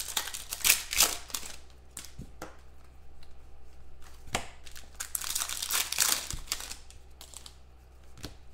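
Football trading cards being handled: a pack wrapper crinkling and card stock rustling and sliding in irregular bursts, with a few light taps of cards against each other or the table.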